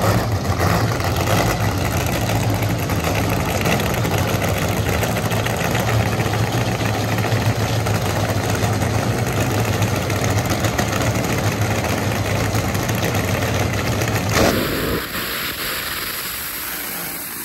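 Car engine running at a steady pitch under a loud rushing noise, which drops away sharply about fourteen seconds in, leaving a quieter engine sound.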